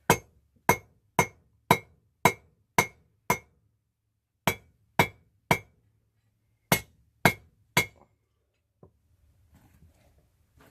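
Blacksmith's hammer striking rebar on an anvil while forging: thirteen blows at about two a second, in runs of seven, three and three, each with a short metallic ring. The hammering stops about eight seconds in.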